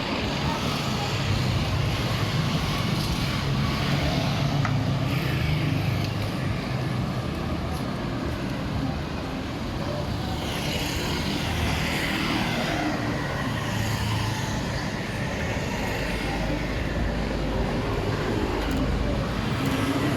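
Street traffic: motor vehicles running and passing close by, with a deep engine rumble in the last few seconds.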